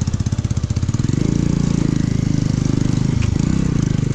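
Motorcycle engine running at low speed on a rough downhill track; its rapid exhaust pulses are plain for about the first second, then the note evens out.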